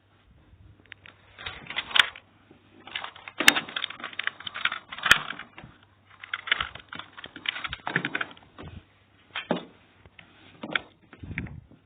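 Hard plastic parts of a vacuum cleaner being handled, giving irregular clusters of clicks and rattles, with a dull knock near the end.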